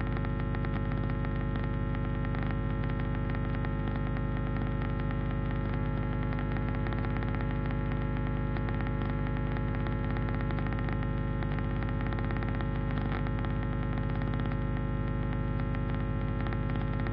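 Electrical noise: a steady buzzing hum made of many stacked tones, with a faint crackle of static running through it. It holds level without pause or change.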